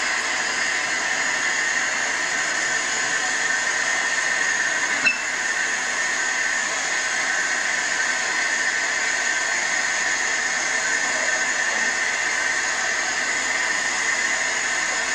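Water running steadily from a bathroom tap into a sink, an even hiss, with one short click about five seconds in.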